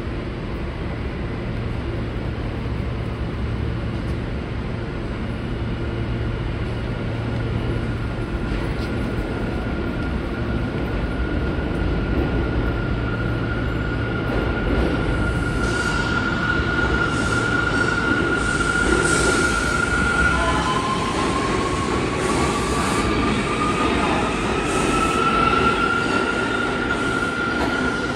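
R160 New York City subway train approaching and pulling into an underground station, a steady rumble with a high whine that slowly rises in pitch and grows louder. A second whine joins about twenty seconds in and climbs to meet the first.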